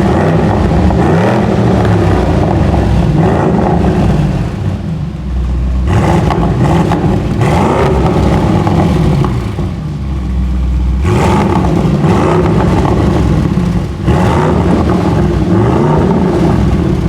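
2020 Audi RS6 C8 Avant's twin-turbo 4.0 V8 being revved repeatedly while stationary through a full Akrapovic exhaust with the particulate filter deleted, its pitch rising and falling with each blip after a Stage 2 ECU tune.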